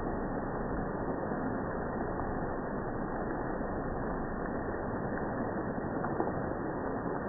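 Rain falling steadily in jungle: an even, dull rushing noise with no high tones and a faint tick about six seconds in.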